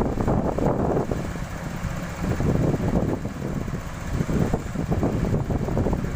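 Doosan 140 excavator's diesel engine running, a continuous rumble that rises and falls in level.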